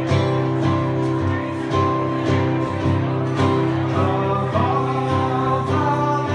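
Acoustic guitar strummed in a steady rhythm, a song's intro chords, with a man's singing voice coming in over it about four seconds in.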